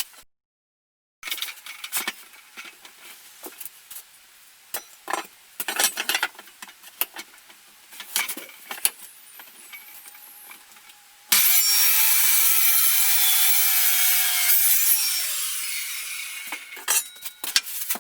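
Wooden knocks and clicks of handling work pieces, then about eleven seconds in a power tool starts cutting wood abruptly. It runs loud for about four seconds, its tone sagging and fading out as it finishes.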